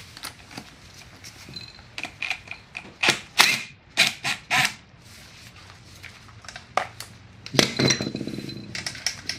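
Sharp metallic clicks and clinks from a cordless impact driver with a half-inch socket working the bolts on the steel frame of a Kwik-Way on-car brake lathe. A longer rattle of metal parts comes about eight seconds in.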